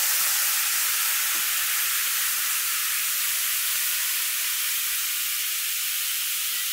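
Red cooking wine sizzling in a hot skillet of steak fat and juices as it deglazes and reduces for a pan sauce. It is a steady hiss that eases off slowly.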